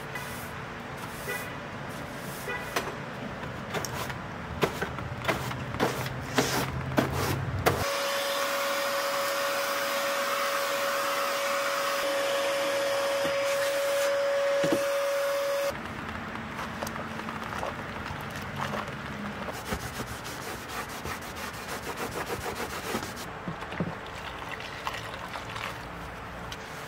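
Broom sweeping a wood floor, with scattered knocks and clacks. About eight seconds in, a vacuum cleaner starts and runs steadily with a high whine for about eight seconds, then cuts off suddenly. Light clattering and rustling of hand cleaning follow.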